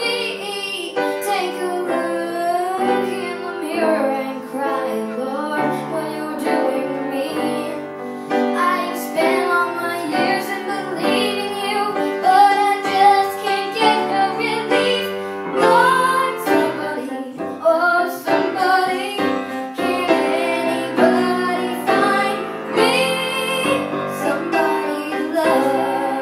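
A young girl singing a song, with piano accompaniment.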